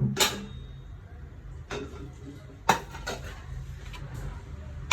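Kitchen utensils clinking against a pan or dish, four short sharp knocks with the loudest a little past halfway, over a low steady hum.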